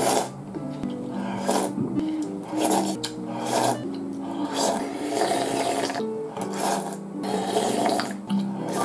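Ramen soup slurped from a spoon and sipped from the bowl: short noisy slurps about once a second, over background music with held notes.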